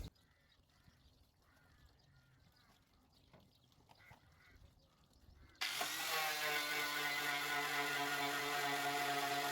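Near silence with a few faint small sounds, then about five and a half seconds in a power tool fitted with a paint-stripping disc starts abruptly and runs with a steady whine.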